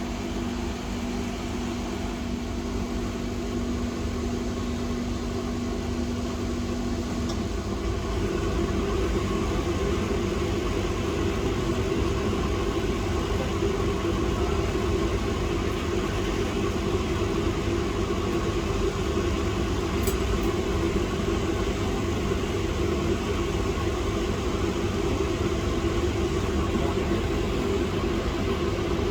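Steady whir of a bench fan or blower. A steady hum underneath stops about seven seconds in, and the whir grows a little louder about a second later.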